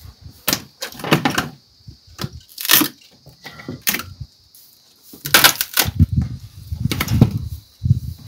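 Dry tree branches being broken up for firewood: a series of sharp cracks and snaps of dry wood, mixed with dull thuds of wood against the paved ground.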